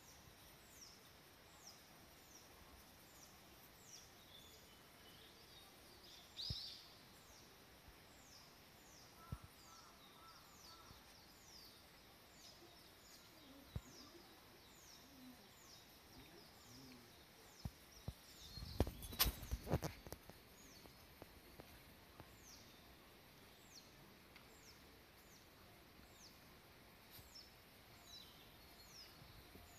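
Quiet outdoor ambience with a bird repeating a short, high, falling chirp about once or twice a second. A brief cluster of close knocks and rustles comes about two-thirds of the way through.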